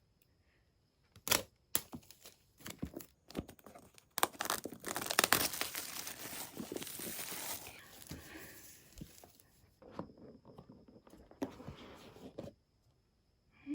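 Packaging being torn open and crinkled by hand. Scattered sharp clicks and rustles come first; about four seconds in, a few seconds of continuous tearing follow, and then more intermittent handling clicks.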